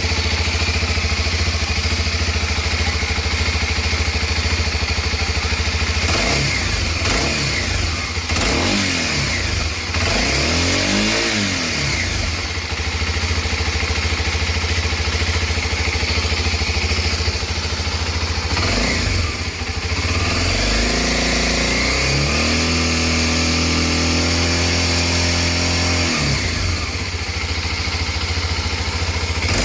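Single-cylinder motorcycle engine on its stock exhaust idling in neutral, with several quick throttle blips in the first half. Just past the middle it is revved and held up for about five seconds before dropping back to idle, and it is blipped again near the end.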